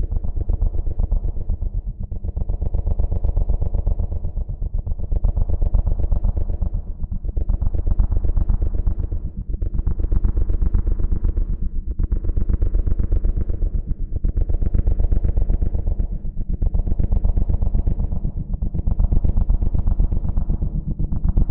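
A drone's propellers running with a fast, even buzz and a steady hum, swelling and easing about every two seconds.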